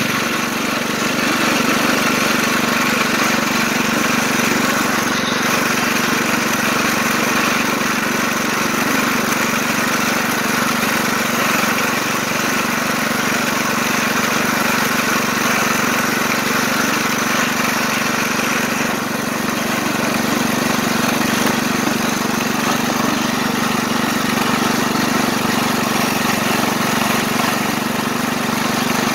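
Small engine of a ride-on miniature locomotive running steadily as it pulls along the track, an even low drone with no change in speed.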